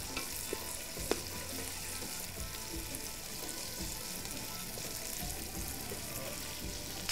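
Chopped onions frying in oil in an aluminium pot: a steady sizzle, with a wooden spatula stirring and scraping against the pot and a sharp knock about a second in.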